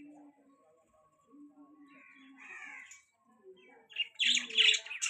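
Pet budgerigars chirping and warbling: soft twittering calls about halfway through, then a loud burst of rapid sharp chirps near the end.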